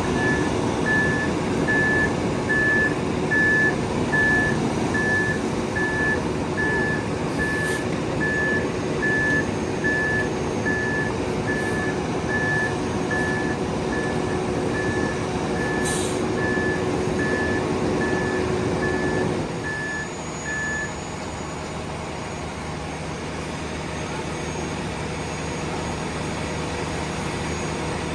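A 9-cubic-yard concrete mixer truck reversing: its diesel engine runs loudly under the steady beeping of its backup alarm, about one beep every three-quarters of a second. About twenty seconds in, the engine drops to a quieter, lower running and the beeping stops shortly after. Two brief sharp hisses come during the reversing.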